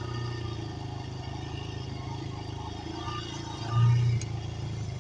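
Dirt bike engine running as the bike rides over grass, getting briefly louder about four seconds in.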